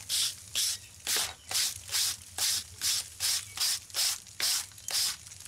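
Hand-held steel wire brush scrubbing back and forth on a crumbling concrete edge, a rhythmic scratchy rasp at about two strokes a second, brushing off loose concrete.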